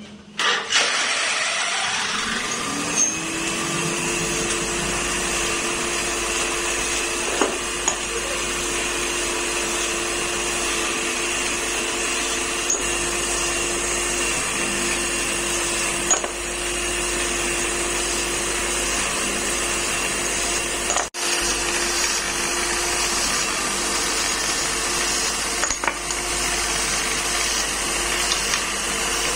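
Electric-motor buffing wheel starting up about a second in, rising in pitch to speed, then running steadily while steel truck kingpins are pressed against the spinning buff.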